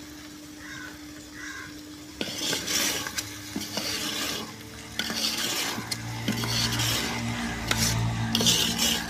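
A long metal ladle scraping and stirring in a metal cooking pot, with repeated scrapes and sharp clicks of metal on metal starting about two seconds in. The dried milk crumbles are being fried in freshly added ghee.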